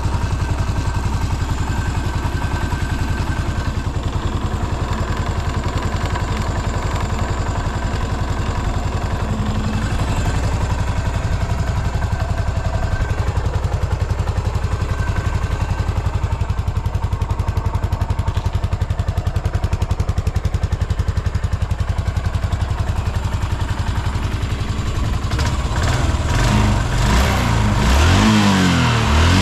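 1997 Yamaha SR400's air-cooled single-cylinder four-stroke engine idling steadily, then revved a few times near the end, the revs rising and falling quickly. The bike is fully stock, and the seller calls it free of abnormal noises and quick to rev.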